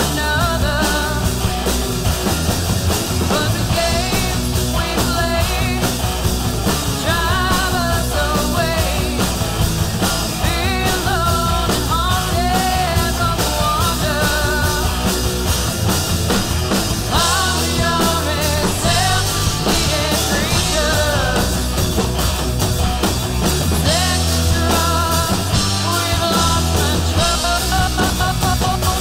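Hard rock band playing live: distorted electric guitars and a drum kit, with a female lead vocal singing over them.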